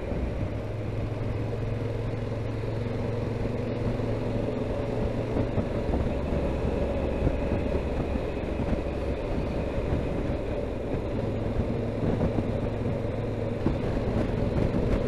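Yamaha XT1200Z Super Ténéré's parallel-twin engine running at a steady road cruise, mixed with wind and road noise, getting slightly louder toward the end.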